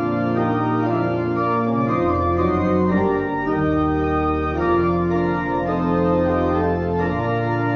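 Church organ playing the closing hymn: full sustained chords moving from one to the next.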